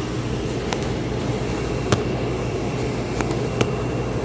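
A steady machine hum over eggs and rice frying in a pan, with a few sharp pops from the pan.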